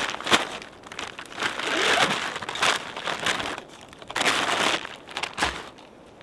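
Rustling and crinkling of clothing and gear being handled, in several irregular bursts, with a sharp knock about five and a half seconds in.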